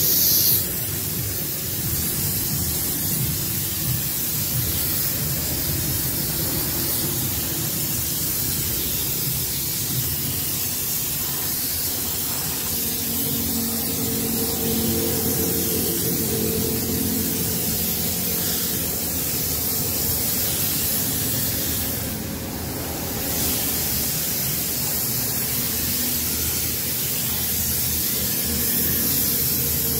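Compressed-air siphon spray gun hissing steadily as it blasts a mist of cleaning liquid over a car's engine bay, easing off briefly about three-quarters of the way through.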